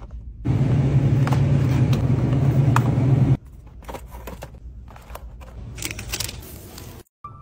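Shopping cart rolling: a loud, steady rumble that starts about half a second in and stops suddenly about three seconds later, followed by quieter clicks of handling.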